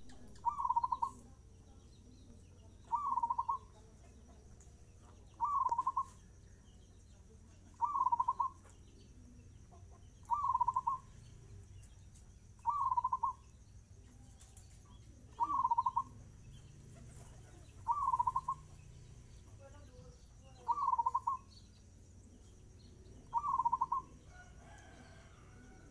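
Zebra dove (perkutut) singing its cooing song at a fast tempo: a short phrase roughly every two and a half seconds, ten in all.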